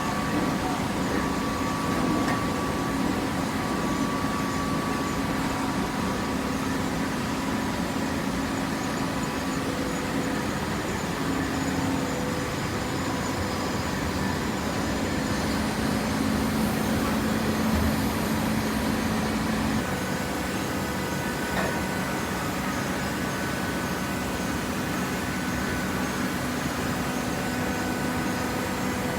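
Hydraulic baler running: a steady mechanical hum from its pump and motor, its pitch shifting slightly a few times.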